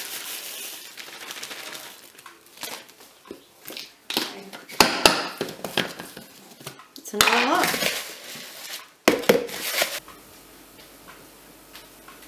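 Plastic bag rustling as biscuit crumbs are poured into a Magic Bullet blender cup, then clicks and knocks of the plastic cup being handled, with two louder bursts of about a second each over the middle.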